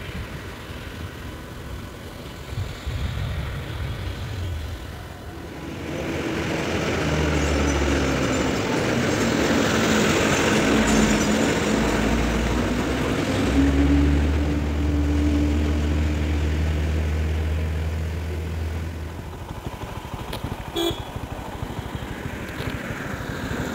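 A bus's diesel engine labours round a tight hairpin bend close by, getting steadily louder, peaking about halfway through and then fading away. A short horn beep sounds near the end.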